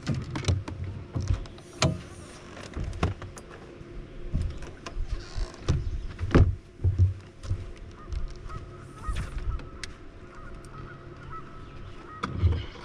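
Knocks and thumps from an angler moving and casting on a bass boat's deck, with honking bird calls among them.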